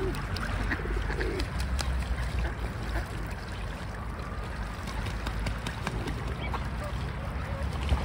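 A flock of gulls and mallard ducks bathing, with splashing and scattered bird calls over a steady low rumble.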